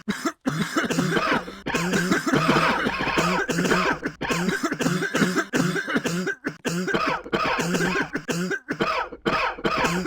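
Coughing, one bout after another with short breaks between.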